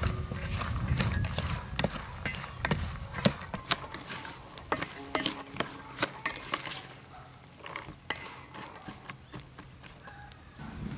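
Wooden spoon stirring small wild berries in a stainless steel bowl, with irregular clicks and knocks of wood against metal; the knocks thin out and grow quieter about seven seconds in.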